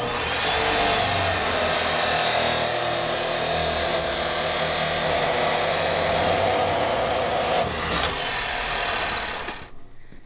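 Milwaukee chop saw cutting through a 2.5-inch rubber radiator hose: a loud, steady cutting noise for about seven and a half seconds, then the blade winds down and stops near the end.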